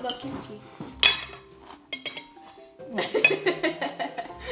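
A metal spoon clinking and scraping against a large ceramic bowl, with a sharp clink about a second in, over background music.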